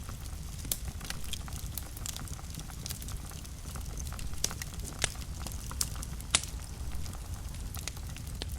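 Wood fire burning in a fireplace: a steady low rumble of flames with irregular sharp crackles and pops, the loudest pop about six seconds in.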